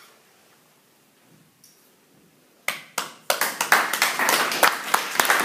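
A quiet pause, then a small audience starts clapping about two and a half seconds in: two single claps, then steady applause.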